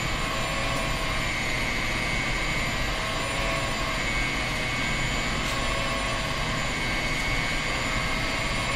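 Electric stand mixer's motor running steadily with a faint whine, driving a food-grinder attachment that extrudes pebernødder (pepper-nut) cookie dough as it is pressed in with a pusher.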